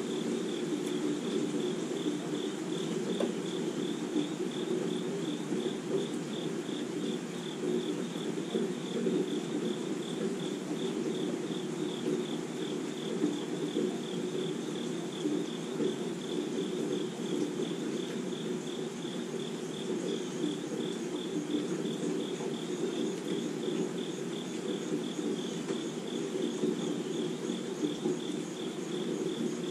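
Crickets chirping in a steady, even pulsing rhythm over a low, even rush of steady rain falling on trees and lawn.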